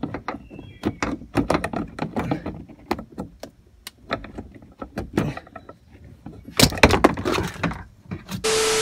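Socket ratchet and extension working a stiff, partly stripped Torx bolt on a hatch lift support: irregular metallic clicks and clinks, with a louder clatter about seven seconds in as the bolt comes loose. A short loud steady buzzing noise cuts in near the end and stops abruptly.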